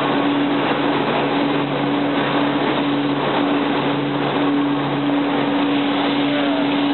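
Steady machinery hum at a constant pitch under an even, noisy rush, running without change.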